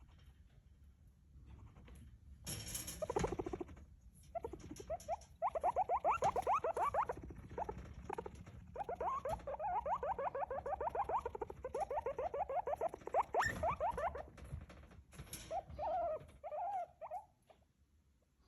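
Guinea pig calling in long runs of quick, rapidly repeated pulses, with short breaks between runs and a few brief rustling bursts.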